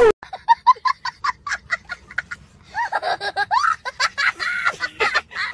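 High-pitched laughter in quick short bursts, then longer giggles that swoop up and down in pitch.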